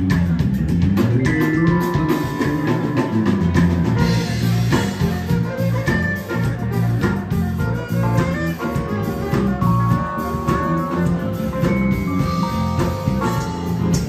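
Live R&B band playing an instrumental groove: electric bass line and drum kit under a keyboard, with long held melody notes over the top.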